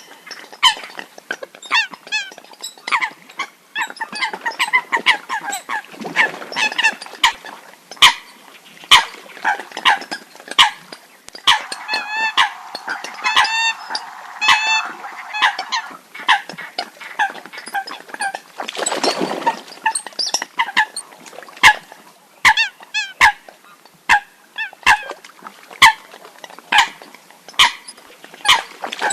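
Water hens giving short, harsh honking calls in quick, irregular series, several birds overlapping. This is the kind of call recording hunters play to lure water hens.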